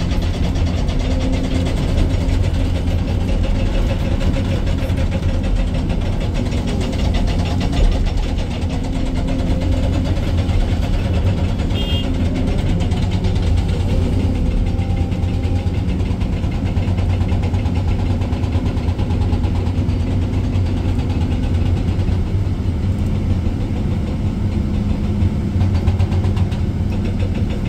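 Excavator's diesel engine running steadily while the machine works.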